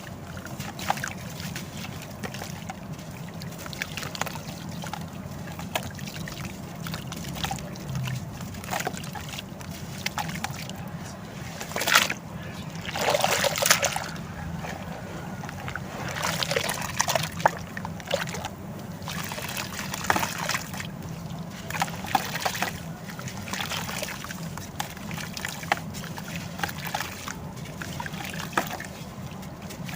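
Crumbly sand-and-cement shapes being broken up and dipped in water: sloshing and trickling with irregular crisp crackles, and a louder splashing rush a little before halfway.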